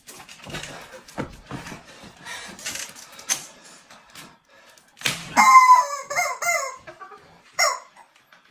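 A handheld plastic squeeze toy squawking in several quick, jerky squeezes about five seconds in, with one more short squawk near the end, after a stretch of soft handling and rustling.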